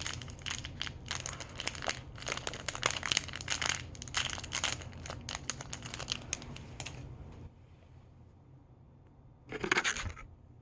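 Small plastic bag being crinkled and torn open by hand, in quick dense rustles for about seven seconds. It then goes quiet, with one short rustle near the end.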